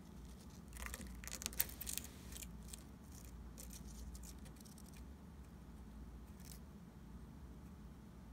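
Faint, sharp crackling clicks of a leopard gecko biting into and chewing a cricket, in a quick cluster about a second in and then a few single clicks, over a steady low hum.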